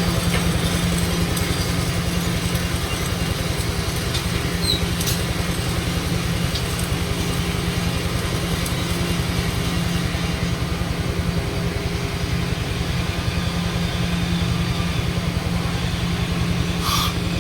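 Flux-cored arc welding: a steady mechanical drone with a fast, even pulse and a strong low hum under a thin crackle, kept up throughout.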